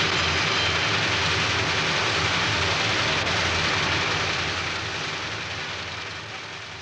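Steady, loud din of workshop machinery running, a dense noise with a low hum beneath it, fading down over the last couple of seconds.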